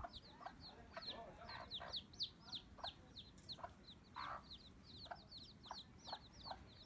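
Faint chickens clucking, over a steady stream of short, high, falling chirps, several a second.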